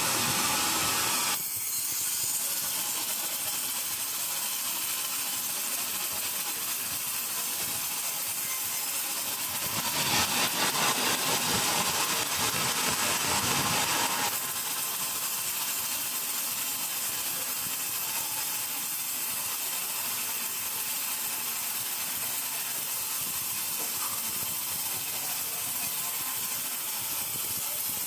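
Steady hissing noise that drops slightly about a second and a half in and grows louder for about four seconds around ten seconds in.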